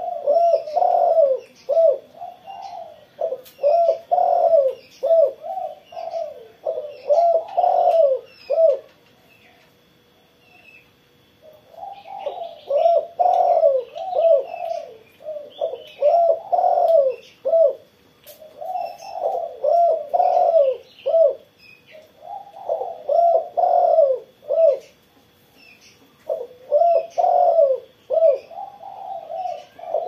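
Spotted dove cooing in repeated phrases of several coos each, one phrase after another every few seconds, with a pause of about two seconds about a third of the way in. Faint high chirps from small birds sound in the background.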